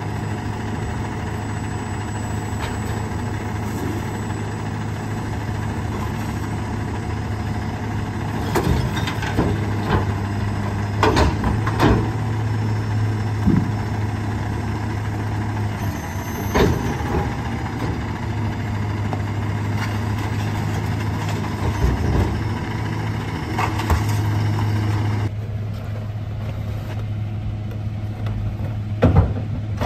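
Rear-loader garbage truck's diesel engine idling steadily, with scattered knocks and clatters as trash bags and bins are loaded into the rear hopper.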